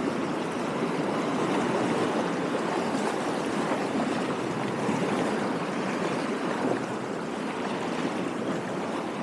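Small lake waves lapping and washing steadily along the shoreline, an even rushing noise with no distinct splashes or clicks.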